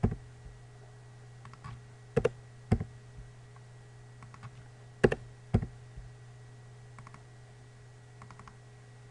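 Computer mouse clicks and keyboard keystrokes while code is edited: about five sharp clicks, several in pairs about half a second apart, with fainter light taps between them. A low steady hum runs underneath.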